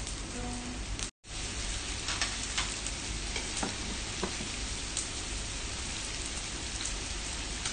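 Pork belly and sausages sizzling in their fat on an electric table-top griddle: a steady frying hiss with a few light clicks of chopsticks against the griddle plate. The sound cuts out for a moment about a second in.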